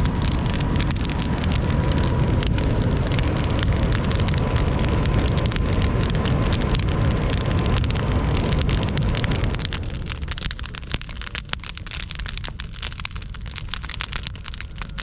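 Large wood campfire burning, a steady roar full of dense crackling and popping; the low rumble eases off about ten seconds in.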